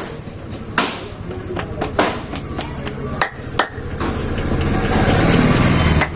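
Sharp slaps of a barber's hands striking in a percussive massage, irregular and about one a second. About four seconds in, a louder steady noise with a low hum takes over and stops shortly before the end.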